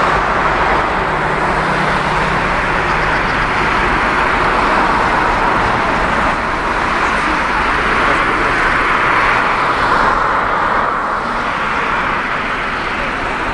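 Airbus A320 jet engines running at low taxi power, a steady rushing noise.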